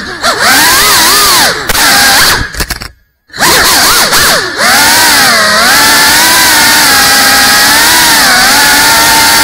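Brushless motors and ducted propellers of a GEPRC CineLog 35 cinewhoop drone, heard up close through its onboard camera. The loud whine rises and falls with the throttle. It cuts out for a moment about three seconds in, spins straight back up, then holds a steadier, slightly wavering pitch.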